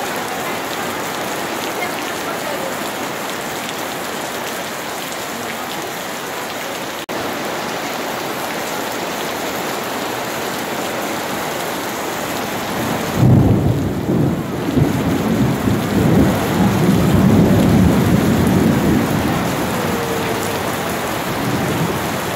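Steady rain falling on paving stones and water. About halfway through, thunder breaks in with a sudden low rumble that rolls and swells for several seconds, then fades back under the rain.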